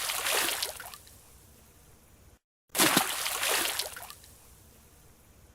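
A diver's entry splash into a pool: a sudden burst of splashing water that fades away over about a second and a half, heard twice, with a brief gap of dead silence between the two.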